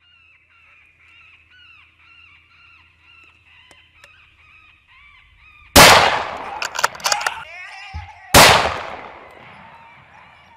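Repeated honking bird calls, then two loud gunshots about two and a half seconds apart, with a few sharp clicks between them. The first shot strikes a coyote.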